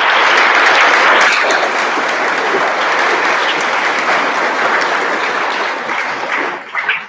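Audience applauding, steady and then dying down near the end to a few scattered claps.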